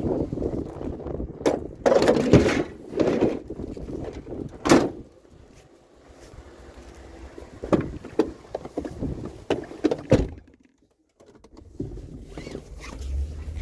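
A metal curbside table being handled and loaded for scrap: a string of irregular knocks, clanks and scrapes, the loudest about two and five seconds in. Near the end a vehicle engine hums low.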